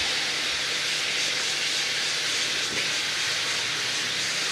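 A steady, even hiss with no rhythm.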